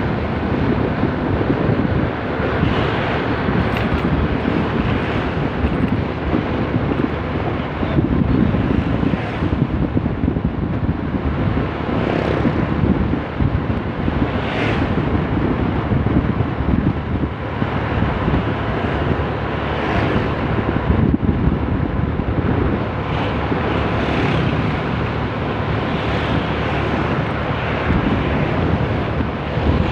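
Motorbike being ridden along a road: steady engine and road noise with wind buffeting the microphone, swelling now and then.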